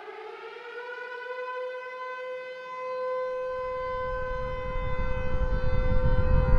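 Civil-defence air-raid siren winding up and then holding a steady wail. A deep rumble from the nuclear explosion comes in about halfway through and grows louder toward the end.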